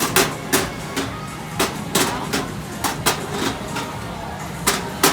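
Irregular sharp knocks and clacks of utensils at a street-food stall, about a dozen in quick succession, over a steady background of market noise.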